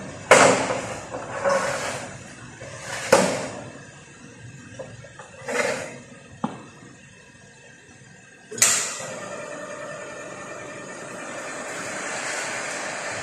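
A hanging load of metal parts on a gantry crane hook clanks and rattles as it is pushed and swung by hand, with about five loud clattering hits a second or two apart and a sharp click. From about nine seconds in, a steadier rushing noise follows.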